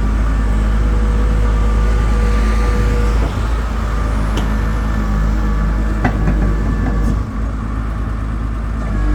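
The IHI IPD100 pile driver's engine running steadily with a low rumble and a steady whine over it; a few sharp clicks or knocks sound between about four and seven seconds in.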